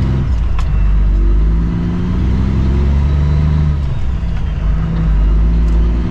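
Cummins ISX diesel of a Kenworth W900L, heard from inside the cab, pulling away and accelerating through the gears. The engine note climbs in each gear and drops at each of three shifts, about two seconds apart.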